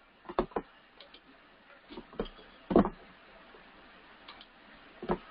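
A handful of short, soft clicks and taps at uneven intervals, with quiet room tone between them.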